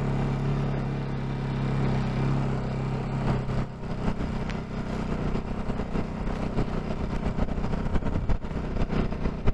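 Bajaj Pulsar NS200's single-cylinder engine running at a steady note for the first three and a half seconds or so, then turning uneven, with scattered knocks as the bike rides onto the stony mountain track.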